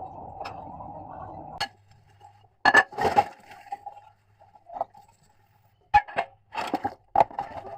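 Kitchen glassware and dishes clinking and knocking against each other in several sharp, separate strikes. A steady rushing sound stops about a second and a half in.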